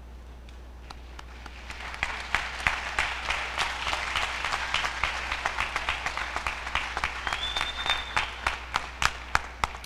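Audience applauding, swelling in about two seconds in and keeping on steadily, with a brief high tone about seven seconds in.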